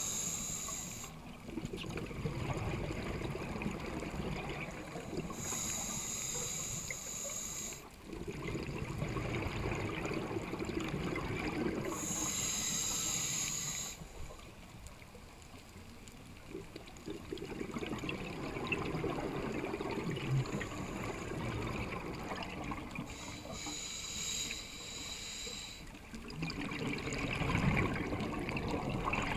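A scuba diver breathing through a regulator, heard underwater. About four inhalations of roughly two seconds each come as a high hiss, and each is followed by a longer, low bubbling exhalation.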